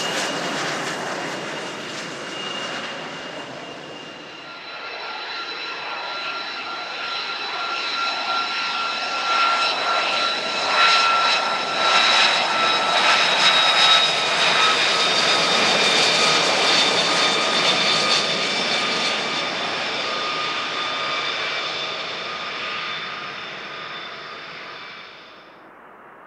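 Jet noise from military fast jets on the runway. First a twin-engine F/A-18 Hornet fades away; then, from about four seconds in, a single-engine F-35A Lightning II, its Pratt & Whitney F135 giving a steady high whine over the rush, grows louder and then fades as it rolls past.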